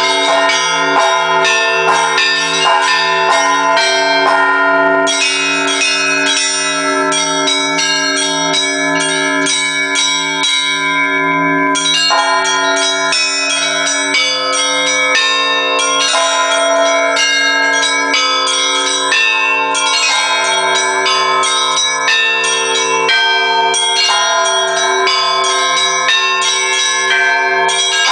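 Russian church bells rung by hand by a bell-ringer: a continuous peal of many bells at different pitches. Quick strikes of the smaller bells run over a lower bell that sounds in an even, steady beat.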